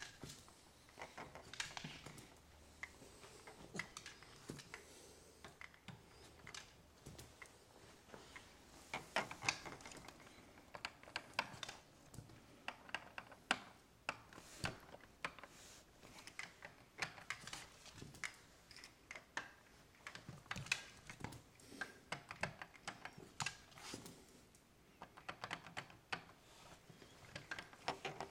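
A Cavalier King Charles spaniel's claws clicking and paws tapping on a tiled floor as it jumps up and down over and over: a faint, irregular run of light clicks, several a second.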